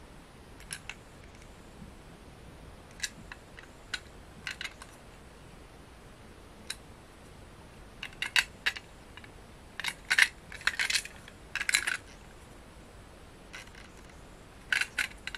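Light clicks and rattles of a plastic Plarail toy train car being turned in the hands, coming in scattered clusters, busiest in the middle and again near the end.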